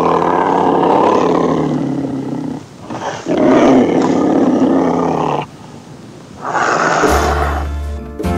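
Three long, loud animal roars, one after another, laid over the opening title. A low hum comes in near the end.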